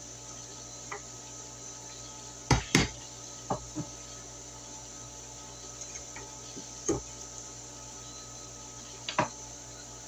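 Hammer striking a screwdriver, irregular sharp knocks: two loud ones in quick succession about two and a half seconds in, two lighter ones a second later, then single knocks near seven and nine seconds.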